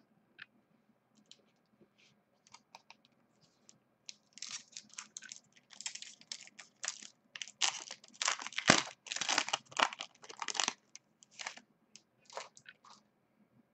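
Foil wrapper of a Bowman Platinum baseball card pack being torn open and crinkled by hand: a few light crackles, then several seconds of dense crinkling and tearing starting about four seconds in, tapering to a few crackles near the end.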